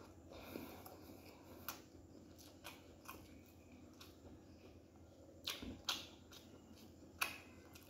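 Faint chewing and mouth sounds of a man eating biryani by hand, with a few short soft clicks and smacks at irregular moments over a low steady hum.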